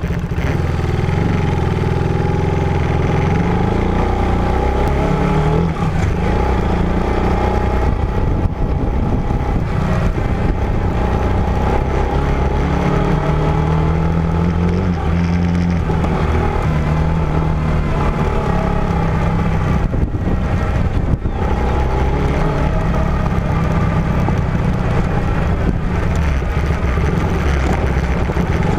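Off-road vehicle's engine running while driving, its pitch shifting up and down with the throttle.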